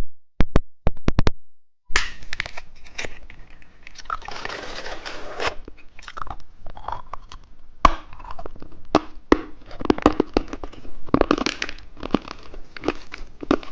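Close-miked candy eating: a plastic wrapper crinkling and tearing, and a hard lollipop being crunched and chewed in many sharp cracks.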